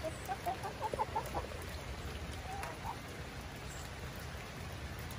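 Hens clucking several times in quick succession during the first second and a half, then once more near the middle, over a steady patter of rain.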